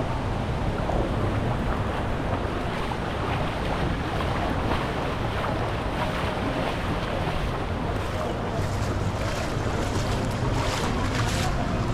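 Rushing and splashing water from a raft ride down a water slide, with wind buffeting the camera's microphone, and sharper splashes in the second half.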